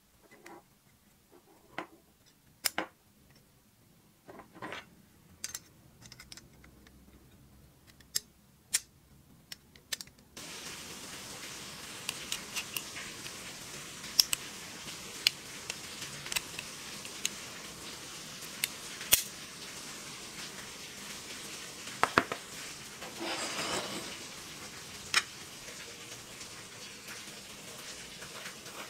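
Sharp metal clicks and taps of small antique revolver parts being fitted together and handled. About a third of the way in a steady hiss comes in under the clicks, and there is a brief scraping about two-thirds through.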